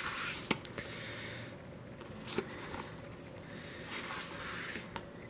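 Photobook pages being turned by hand: several soft paper swishes with a few light clicks between them.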